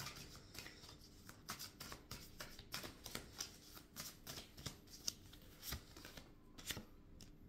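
A deck of cards being shuffled by hand: a run of faint, quick card snaps and clicks.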